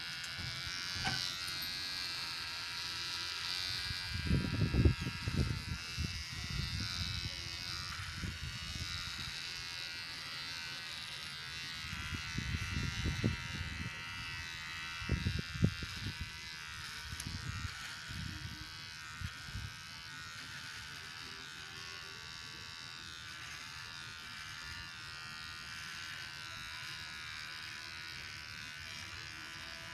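Xiaomi Mi beard trimmer running with a steady high buzz as it cuts through beard hair, with irregular low bumps between about four and twenty seconds in.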